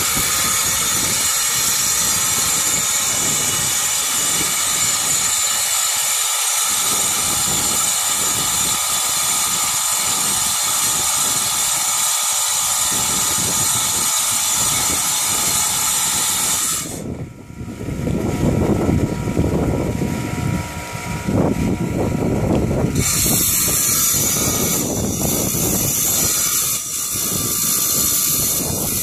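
Harbor Freight electric tile saw running with a steady high motor whine. From about seventeen seconds in, for some six seconds, the whine drops away under a coarser, lower grinding noise, then the steady whine returns.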